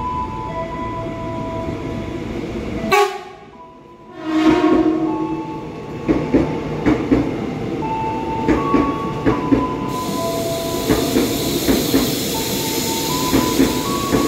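A KAI Commuter EA203 electric airport train arrives at the platform, with a whine that steps in pitch. A short horn blast comes about four seconds in, then the wheels click steadily over the rail joints as the carriages roll past, with a hiss setting in near the end.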